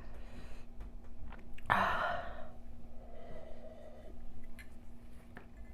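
A woman's heavy breathing as her mouth burns from extra-spicy noodles: a loud breathy huff about two seconds in, then a softer breath, with a few faint mouth clicks.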